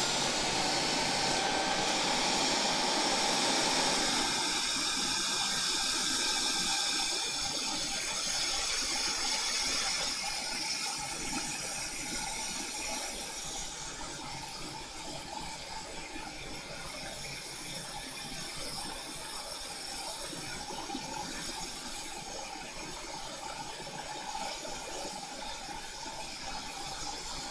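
Steady hiss of hot air rework equipment blowing as it heats a circuit board to reflow a connector. It is louder for the first several seconds, then settles lower.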